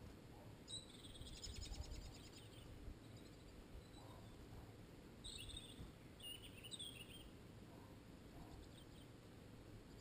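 Small songbirds calling faintly: a rapid high trill about a second in, then short high chirps around five and seven seconds in, over a low background rumble.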